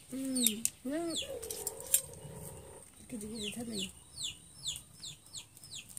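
Chickens clucking in short arched calls, with a steady stream of quick high-pitched falling chirps over them and a few sharp clicks in the first two seconds.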